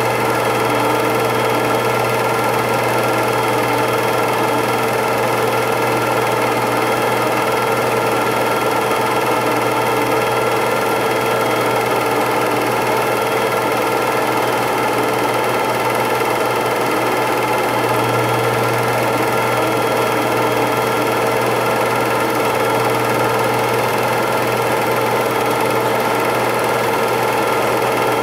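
8mm film projector running with a steady, unchanging mechanical sound.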